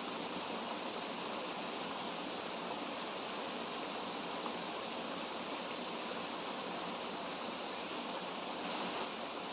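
Shallow stream rushing steadily over rocks.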